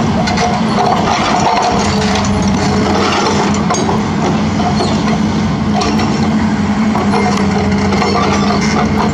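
Hitachi Zaxis 210F excavator's diesel engine running at a steady pitch while the boom moves its raised hydraulic breaker into position.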